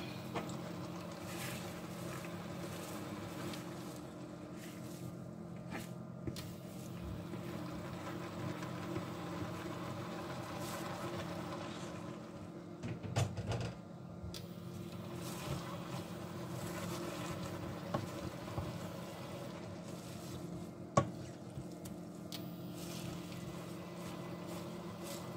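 A plastic spatula stirring cooked leafy greens in a stainless-steel pot, with soft scraping, a few dull knocks, and one sharp tap late on. A steady appliance hum runs underneath.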